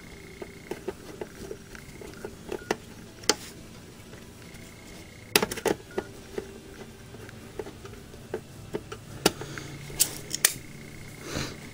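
Scattered light clicks and taps of a Phillips screwdriver and small metal and plastic parts being handled while screws are worked out of an opened Xbox 360. There is a louder cluster of clicks about five and a half seconds in and a few more near the end.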